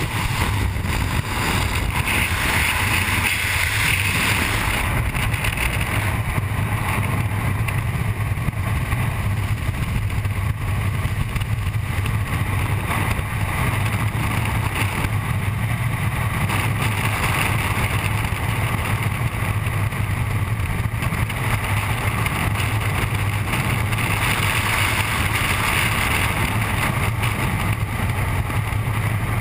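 Steady wind rush over a GoPro camera in skydiving freefall, with a brighter hiss for the first few seconds as the jumpers leave the aircraft.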